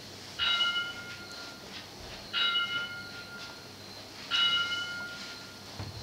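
A bell is struck three times, about two seconds apart. Each strike rings clearly and fades over about a second.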